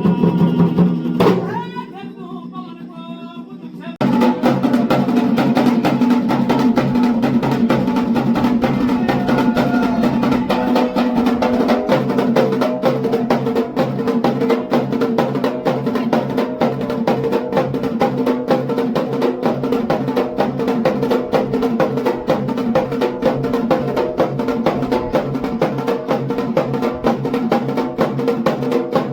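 Music: a melodic, singing-like passage fades in the first two seconds, then about four seconds in fast, steady drumming starts suddenly over a sustained tone and keeps going.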